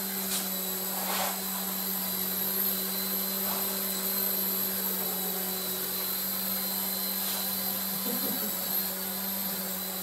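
Small coaxial RC toy helicopter hovering indoors, its electric motors and twin rotors giving a steady whirring hum at an even pitch.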